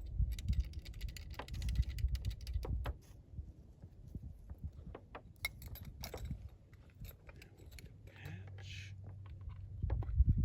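Clicking and rattling of muzzleloader loading gear being handled in a hurry, with low rumbling handling noise over the first three seconds and a short rustle near the end.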